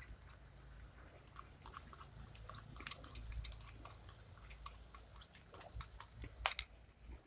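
Faint soft clicks and wet squelches of thick curd being spooned from a bowl into a pot of frying masala, with one sharper click about six and a half seconds in.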